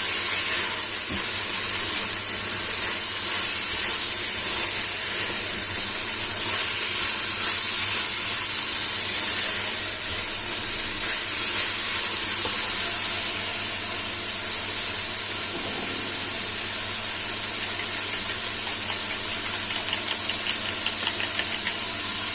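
Green beans and mushrooms sizzling steadily as they are stir-fried in a pan with a little water and oyster sauce, a loud high hiss that eases slightly about two-thirds of the way through.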